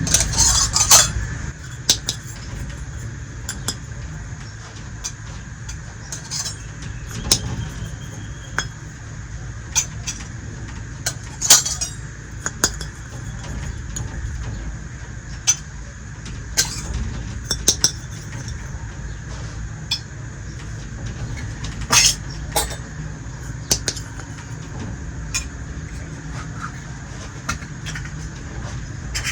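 Small toy kitchenware pieces being handled, giving scattered light clicks and clinks, with a steady low hum underneath.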